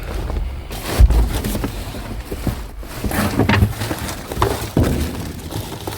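Rummaging through a pile of discarded junk by hand: scattered knocks, clatters and rustles, with a heavy thump about a second in.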